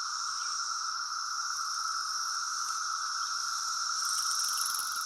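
Dense chorus of cicadas droning steadily on two pitches, one lower and one higher. About four seconds in, a higher, pulsing buzz joins the chorus.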